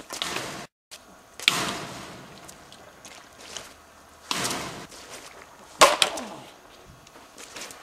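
A Blitzball being struck in a backyard game: one sharp crack about six seconds in, the loudest sound, with a short ring after it. Around it come several short rushes of noise that fade within about a second each.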